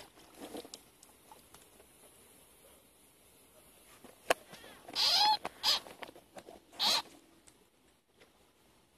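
A sharp click about four seconds in, then three short, loud cries from a field frog being caught, each one bending in pitch.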